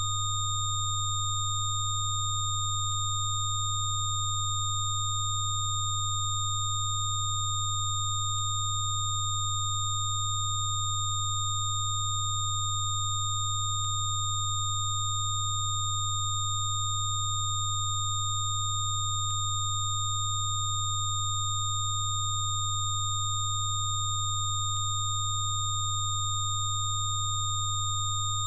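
Synthesized Rife-frequency tones held without change: a loud low hum with several fainter, higher-pitched pure tones stacked above it, up to a thin high whine.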